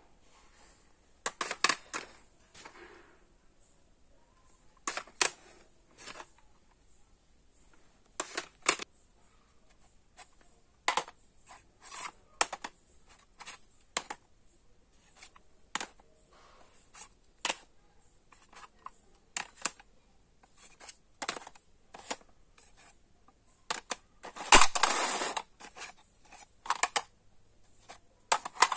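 Hard plastic audio cassette cases clicking and clattering as they are handled and set down on a stack, in irregular sharp clicks every second or two, with a longer, louder clatter near the end.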